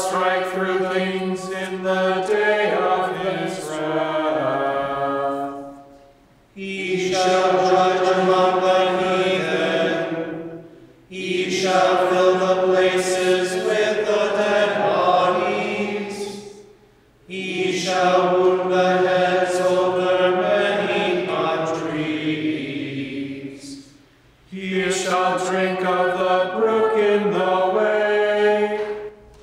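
Gregorian chant sung on a single melody line, in five phrases separated by short pauses for breath.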